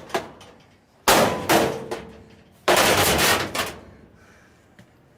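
A clothes dryer being smashed: a quick run of loud metal clanging blows and crashes in the first few seconds, the last one longer and rattling as it dies away.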